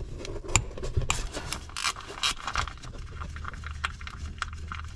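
Irregular clicks and scrapes of a hand tool and hand working in a tight engine bay, removing the 10 mm bolts that hold the ignition coil packs on a boxer engine.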